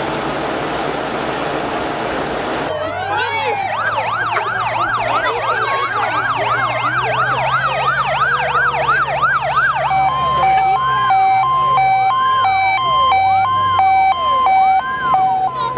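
A truck engine running, then from about three seconds in fire engine sirens: a fast rising-and-falling yelp, about three sweeps a second, joined about ten seconds in by a two-tone siren switching between a high and a low pitch while a slower wail continues.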